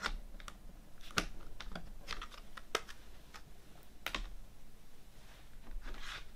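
Plastic CD jewel cases being handled, giving a handful of sharp, irregular clicks and clacks, with a short scraping rustle near the end.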